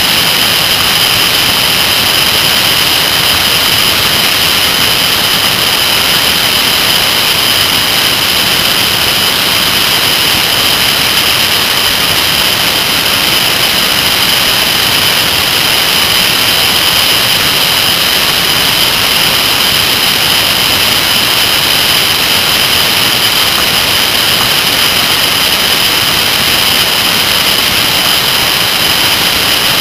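Kawasaki ZR-7S motorcycle at cruising speed: a loud, steady rush of wind and road noise on a low-mounted camera, with a constant high-pitched whine.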